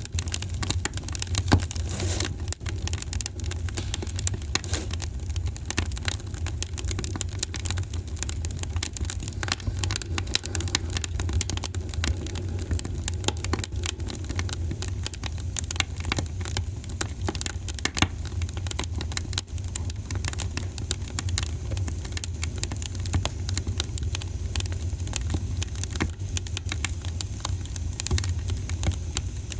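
Wood fire burning in a fireplace, crackling with dense, irregular pops and snaps over a steady low rumble.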